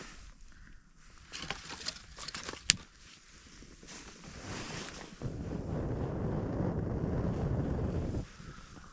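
A few faint clicks and one sharp snap near three seconds in, then wind buffeting the microphone with a low rumble for about three seconds that stops suddenly.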